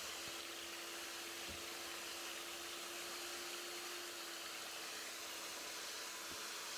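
Electric hand mixer running at its lowest speed in a thin, runny batter: a faint, steady whir and hiss. A faint hum in it fades out about four seconds in.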